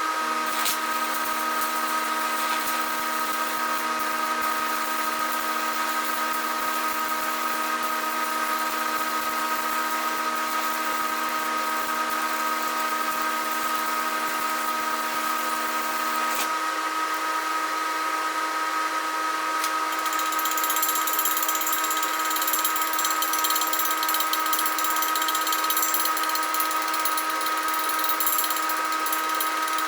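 Electric grinder running steadily on the cast-iron housing with a constant motor whine. From about two-thirds of the way in a harsher, hissing grind comes in as the wheel bites the metal harder.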